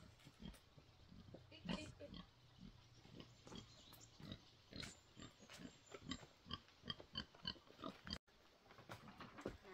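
A pig grunting quietly, with short low grunts repeated every fraction of a second, alongside the crunch of footsteps on dry leaf litter.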